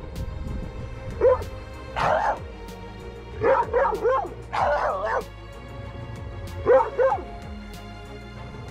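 A dog barking and yipping in short bursts, about five clusters spread over several seconds, with background music underneath.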